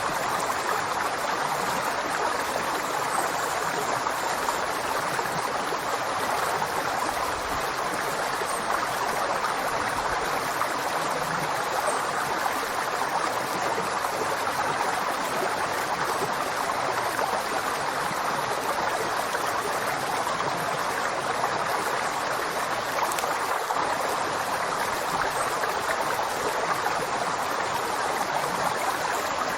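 River water flowing over rocks, a steady rushing and gurgling that does not change.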